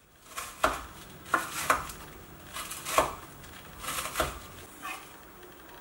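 Chef's knife chopping green onion on a wooden cutting board: about six sharp knocks of the blade on the board at uneven intervals, with a soft slicing sound before some of them.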